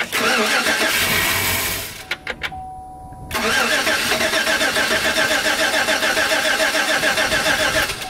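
Pickup truck engine catches briefly on its starter and dies about two seconds in. After a short pause the starter cranks it again with an even pulsing rhythm, but it does not fire: the fuel rail has no pressure because the fuel pump relay is bad.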